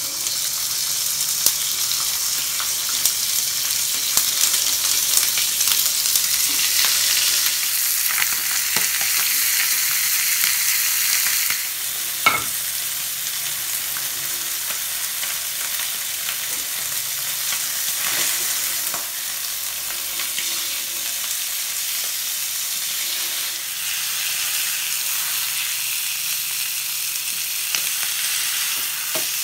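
Marinated whole fish sizzling steadily in a hot ridged grill pan as they are laid in to grill, with a few light clicks over the sizzle; the sizzle eases slightly about twelve seconds in.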